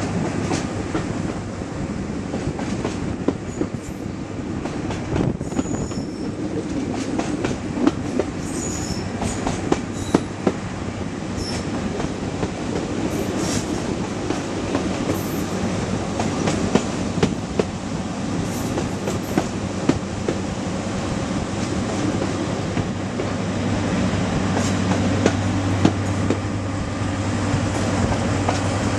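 A train hauled by a Class 55 Deltic diesel locomotive running along the line, heard from a carriage window: a steady rumble with wheels clicking irregularly over the track. A low engine drone grows louder in the last few seconds, and there are a few brief high squeaks.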